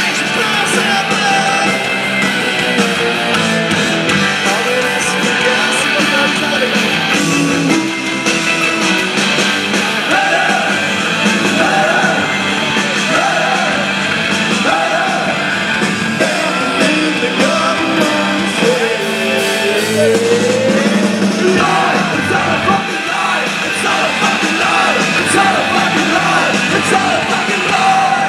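Rock band playing live and loud: distorted electric guitars, keyboard and bass with singing, heard from among the audience.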